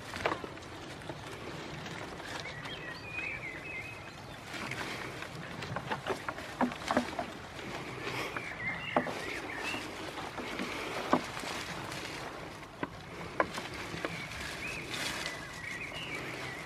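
Goats browsing on leafy branches over wooden pallets: leaves rustling, with scattered sharp knocks and snaps of twigs and hooves on the pallet wood. A bird twitters in three short spells.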